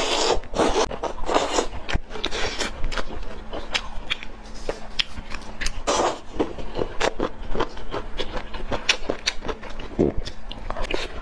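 Close-miked eating of broth-soaked oden: wet slurping and biting into soft fish balls and fried tofu skin, with chewing and lip smacks. Slurps come in the first second or two and again about six seconds in, with short wet clicks between.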